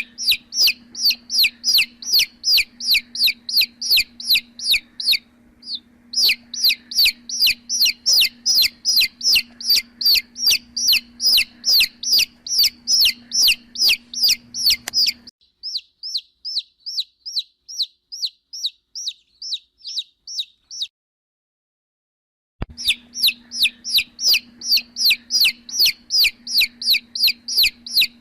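Baby chicks peeping: a rapid run of high, falling peeps, about two or three a second, over a steady low hum. About halfway through the peeping turns faint, stops for a second or two, then comes back loud.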